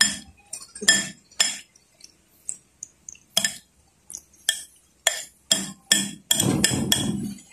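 A metal spoon clinking against a large bowl while a mayonnaise-dressed vegetable salad is stirred: short clinks with a brief ring, about two a second, then a second or so of denser scraping and stirring near the end.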